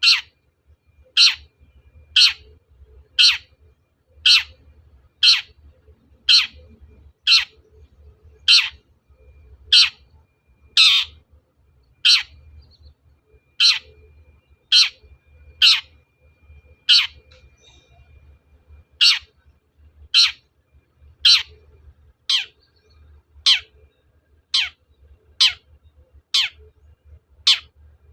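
Long-tailed shrike (cendet) giving harsh, rasping calls, one about every second, each sweeping down in pitch. There is a pause of about two seconds in the middle. This is a lure call meant to provoke other shrikes into calling.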